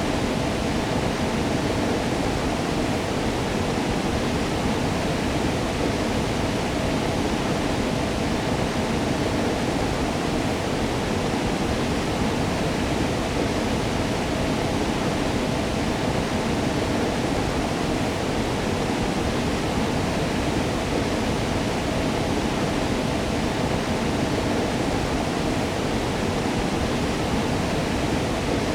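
Waterfall: water falling steadily in an even, unchanging rush.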